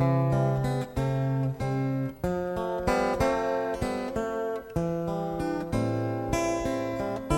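Acoustic guitars strumming a chord progression in an instrumental break between sung verses of a live pop song, the chords changing about once a second. It is an FM radio broadcast recorded on cassette tape.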